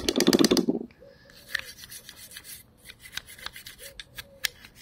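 Rapid back-and-forth scrubbing on a brake caliper piston, cleaning off old dirt, stopping about a second in. Then light scattered clicks and scrapes of handling the caliper.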